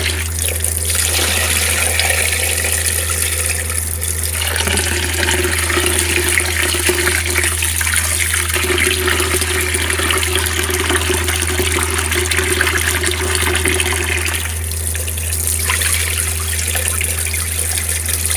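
Tap water pouring steadily into a plastic basin of rice in a sink while a hand swishes and rubs the grains to wash them, with a steady low hum underneath.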